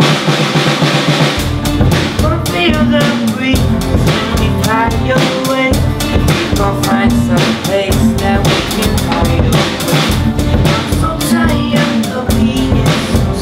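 Live rock band playing: electric and acoustic guitars with a drum kit that comes in about a second and a half in, bass drum and snare keeping a steady beat.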